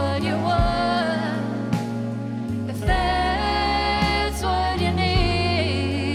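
Live band music: three women's voices singing long held notes in close harmony with vibrato, over a Nord Electro keyboard and band backing with a steady bass line and occasional drum hits.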